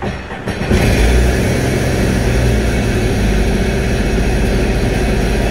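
Sea-Doo GTR 215 jet ski's supercharged three-cylinder Rotax engine starting about half a second in, then idling steadily.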